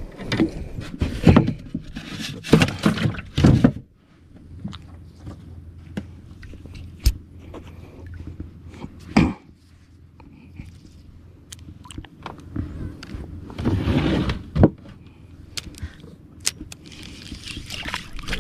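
Knocks, thumps and rustling of hands and gear on a small wooden boat, loudest in the first few seconds as a caught fish goes into a foam cool box. Then come scattered sharp clicks and another short cluster of knocks about two-thirds of the way through.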